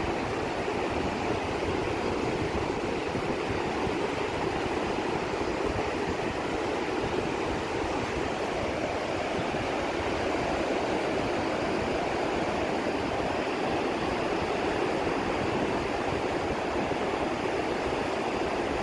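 Ocean surf breaking on a sandy beach: a steady, even rush of waves with no single wave standing out.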